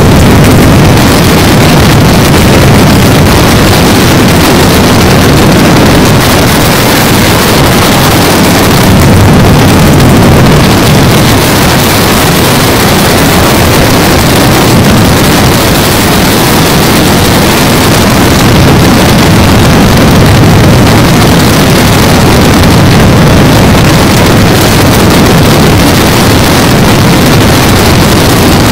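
Wind buffeting a camera microphone, boosted until the audio is heavily clipped and distorted: a loud, steady rushing noise with no letup.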